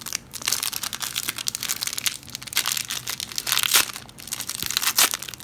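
Plastic wrapper of a 2016 Donruss football-card hanger pack crinkling and tearing as it is opened and handled by hand, a dense run of irregular crackles.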